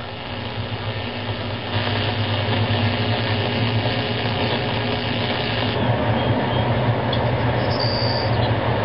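Steady low electrical hum with a hissing buzz over it from high-voltage transmission lines, played back from an old film through a monitor's speaker. The hiss grows fuller for a few seconds about two seconds in.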